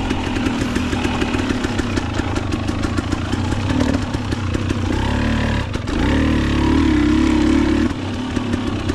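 Dirt bike engine running on a trail ride, its note rising and falling with the throttle. It dips briefly just before six seconds in, then pulls louder and steadier for about two seconds.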